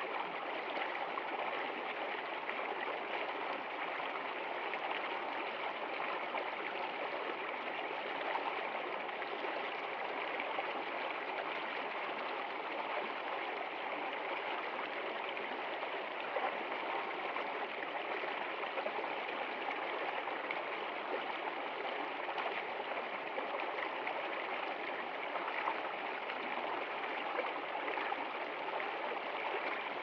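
Small rocky stream running over a low cascade: a continuous, even rush and splash of running water.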